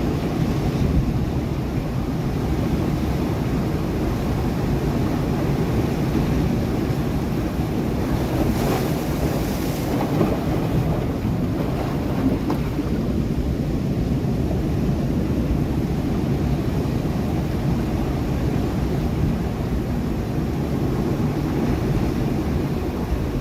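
Sea waves breaking against rocks: a steady low rumble of surf, with wind buffeting the microphone. A brighter hissing splash about eight to ten seconds in.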